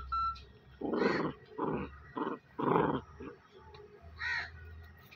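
A run of short animal calls, about five within two and a half seconds, then one more a second later, after a brief clear chirp at the start.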